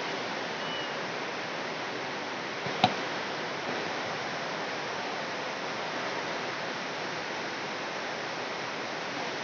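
Steady hiss of background noise, with one sharp click about three seconds in.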